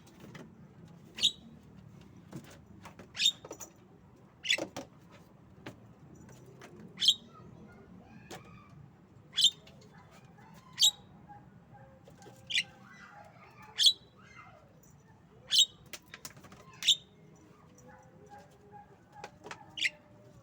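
Javan myna giving about a dozen short, sharp calls, spaced irregularly a second or two apart, with soft quiet chattering between them.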